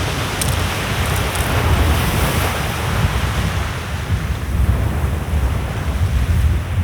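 Sea surf washing steadily on a beach, with wind buffeting the microphone in a heavy, uneven rumble.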